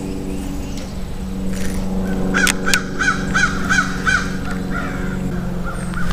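A crow cawing about six times in quick succession, a few fainter calls following, over a steady low hum.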